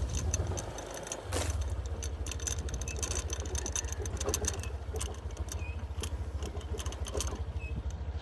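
Small motorcycle engine running with a fast, steady low putter that dips briefly about a second in and then carries on, with light clicking and rattling on top.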